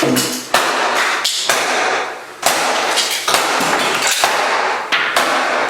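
A Dirt Devil upright vacuum cleaner being smashed: a series of hard blows, roughly one a second or faster, each followed by a short clattering rattle of its plastic body.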